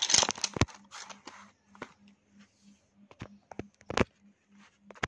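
Wooden pencils clicking and knocking against one another and the tabletop as a handful is spread out, with rustling and a run of clicks at the start, then a few separate sharp clicks, the loudest about four seconds in.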